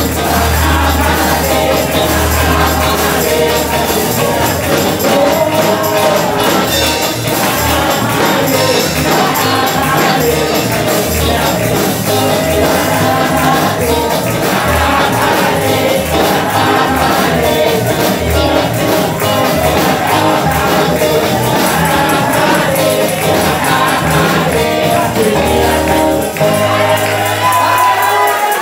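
A congregation and worship band perform a lively gospel song: group singing over deep bass notes and steady rhythmic percussion.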